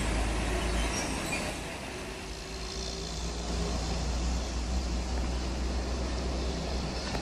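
Diesel truck engines pulling hard up a steep grade, a steady low rumble that eases a little about two seconds in and then builds again as the next truck comes on.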